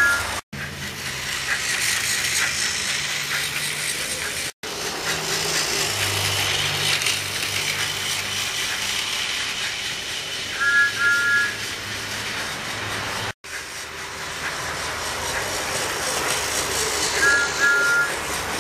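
TOMY Steam Along Thomas toy locomotive running on plastic track: its small electric motor whirring and the wheels rattling along the track, over a steady steam hiss, with a short double toot about 11 seconds in and again near the end. The sound cuts out abruptly three times.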